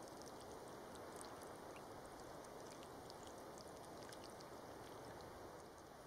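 Water pouring from a plastic gallon jug into a tarantula burrow to flood it out, a faint steady trickle and splash into the soil. The pour stops near the end.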